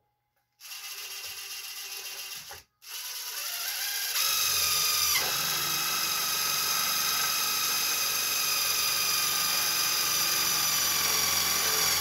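Cordless drill boring a rivet hole through sheet metal into a steel bicycle frame: a steady motor whine that starts about half a second in, stops briefly, then runs on, louder from about four seconds in.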